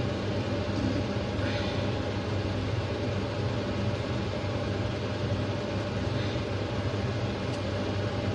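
Steady low hum of a fan or appliance motor, with a couple of faint soft rustles as enoki mushrooms are pulled apart by hand.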